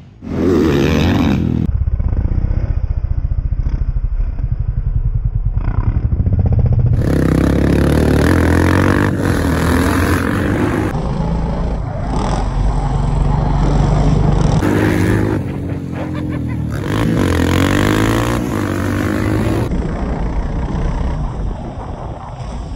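Motocross dirt bike engines revving hard, the revs rising and falling as the riders open and close the throttle over jumps and round the track. The sound changes abruptly several times where short clips are joined.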